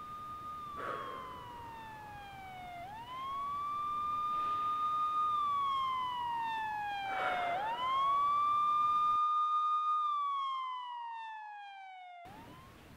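Police siren wailing: each wail climbs quickly, holds its pitch, then falls slowly, repeating about every four and a half seconds. It grows louder toward the middle and fades near the end.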